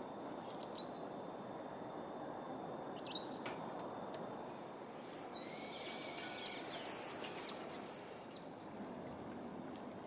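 Common kingfisher giving short, high, shrill calls: one about half a second in, another near three seconds, then a run of calls between about five and eight seconds. A steady rush of flowing river water runs underneath, with one sharp tick in the middle.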